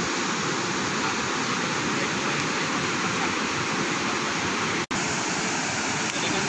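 Steady rush of a fast river pouring over rocky rapids below a waterfall, broken by a very brief gap about five seconds in.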